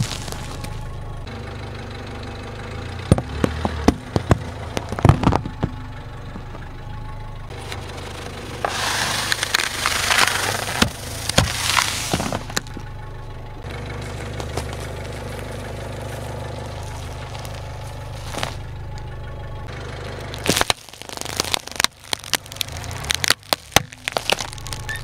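A car tyre rolling slowly over brittle objects such as puffed rice cakes, floral foam and a candy packet, crushing them with a string of sharp cracks and crunches over the steady low hum of the car's engine. A few loud cracks come early, a crackling crunch in the middle, and a quick run of snaps near the end.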